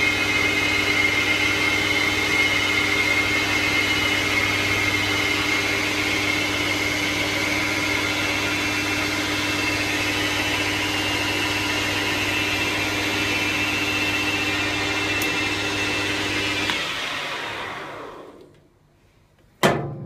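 Small manual metal lathe running while turning an aluminium bar, a steady motor hum with a high gear whine. About seventeen seconds in it is switched off and spins down to quiet, then a single sharp clank rings briefly near the end.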